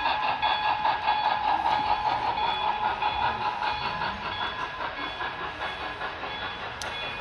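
Model passenger train running along layout track: a rapid rhythmic clicking of wheels over the rail joints with a steady mechanical whine, growing gradually quieter in the second half as the train moves off.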